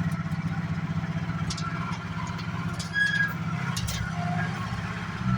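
Truck engine running steadily with an even low pulse, with a few faint clicks and a short high squeak about three seconds in.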